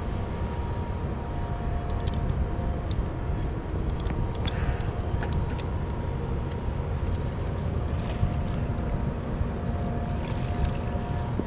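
Steady low rumble of wind on the body-worn camera's microphone high on a building face. About two to six seconds in come scattered light clicks and clinks from the rope-access hardware and the washing bucket and tools.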